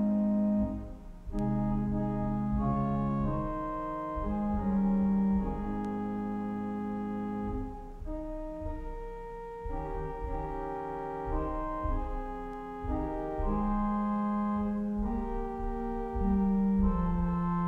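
Church organ playing a slow piece in sustained chords, each chord held for a second or more before moving to the next.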